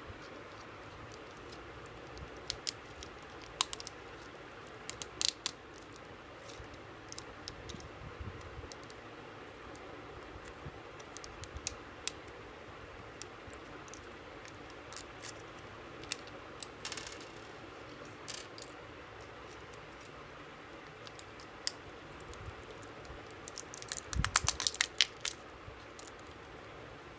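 Small tools and parts of a Casio G-Shock GA-1100 watch being handled during a battery change: scattered light clicks and taps, with a quick run of clicks and rattles near the end, over a steady faint hiss.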